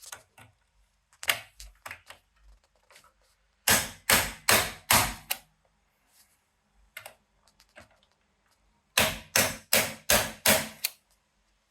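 Rubber mallet striking the back of a hand-held manual impact driver to loosen a rusted, stubborn screw: one blow, then two runs of about six quick blows, roughly three a second, with a few small clicks between.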